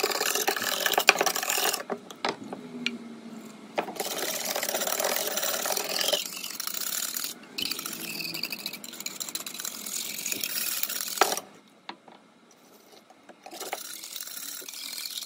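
A wire whisk beating thick half-chalk ground in a small saucepan, its wires scraping and clicking against the pot in quick strokes. It goes in several bouts with short pauses and stops about three-quarters of the way through, leaving only a few faint knocks.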